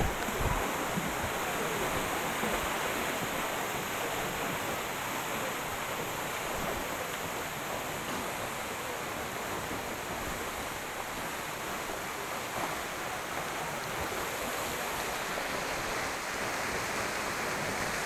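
Steady rush of a swollen, muddy stream and water running down rock at a waterfall, an even noise with no breaks.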